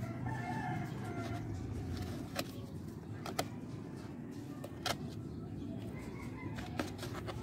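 Faint bird calls near the start over a low steady rumble, with four sharp clicks spread through.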